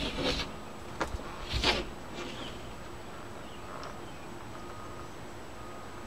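A few short scrapes from a cold knife (pull knife) being worked through the urethane at the windshield's edge, with a sharp click about a second in and the loudest scrape about a second and a half in.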